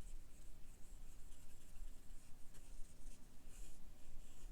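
Water pen's brush tip rubbing across a water-reveal painting card in soft, irregular scratchy strokes.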